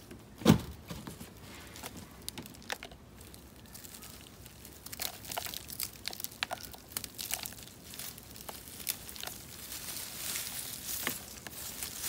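Rustling and crackling of a freshly uprooted peanut plant's dry roots, soil and leaves as the pods are plucked off by hand, with scattered light clicks that grow busier from about five seconds in. A single dull thud about half a second in is the loudest sound.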